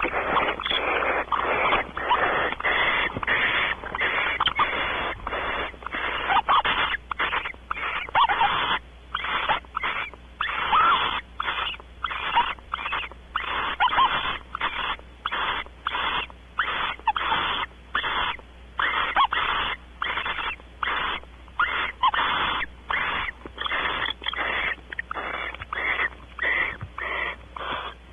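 Barn owl giving a harsh, wheezy hissing call over and over: nearly unbroken at first, then separate rasps about once a second.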